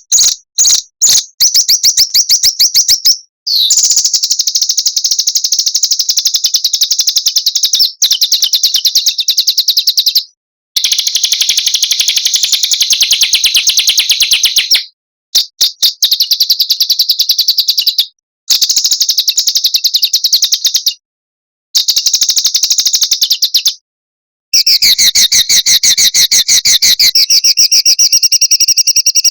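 Small songbird singing fast, dense high-pitched trills and rolls of rapidly repeated notes, in runs of several seconds that stop abruptly at silent gaps, as in an edited bird-song training (masteran) recording.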